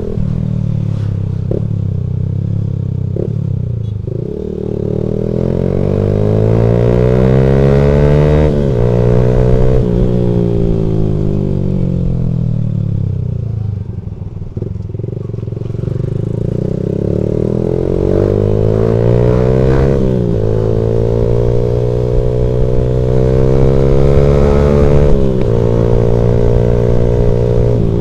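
Motorcycle engine accelerating hard through the gears. Its pitch climbs, then drops sharply at each gear change. Around the middle it falls away as the bike slows, then climbs again through two more shifts.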